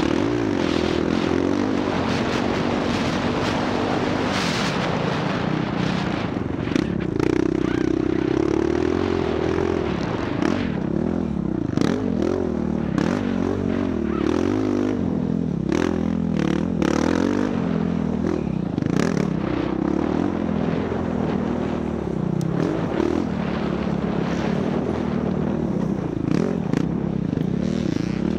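Dirt bike engine revving up and down as it is ridden, its pitch rising and falling continually, with scattered sharp clicks and knocks over it.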